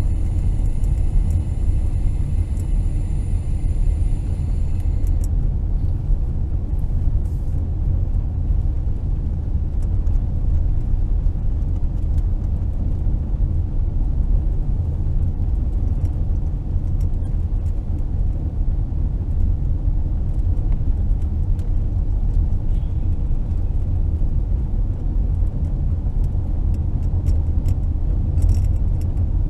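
Steady low road and tyre rumble with engine hum, heard from inside a moving car's cabin. A set of faint, steady high-pitched tones sounds during the first five seconds, then stops.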